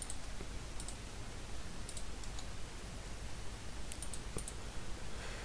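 Computer mouse button clicking, about six short single clicks spread over a few seconds, over a steady faint background hiss and hum.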